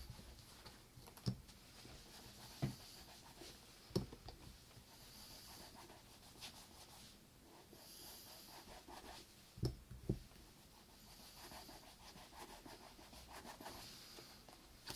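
Faint rubbing strokes on a leather boot, broken by about five sharp knocks; the loudest knock comes about four seconds in, and two close together near the ten-second mark.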